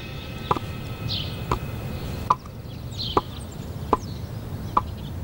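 Slow, evenly paced footsteps: sandals clacking sharply six times, a little under a second apart.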